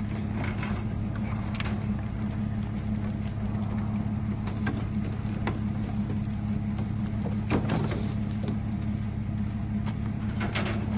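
Truck engine running steadily with an even low hum, with a few light knocks over it.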